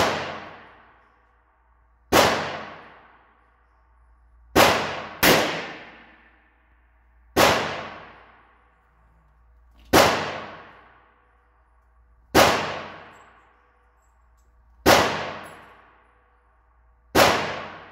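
.38 Special revolver shots fired slowly one at a time, about eight in all, roughly every two and a half seconds with two in quick succession. Each crack is followed by a long ringing echo off the walls of an indoor range.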